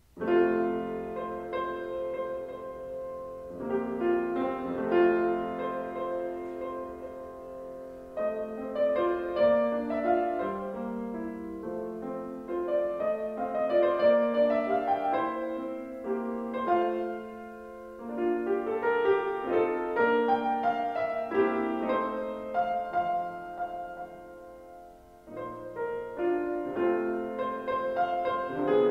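Grand piano played solo. The piece of chords and melody begins right at the start out of near silence and moves in phrases that swell and fall back.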